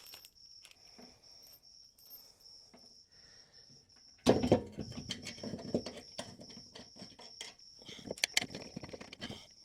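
A steady high-pitched insect trill runs throughout. About four seconds in comes a sudden loud knock, then several seconds of irregular metallic clicks and rattles from hand tools being worked on the bolts.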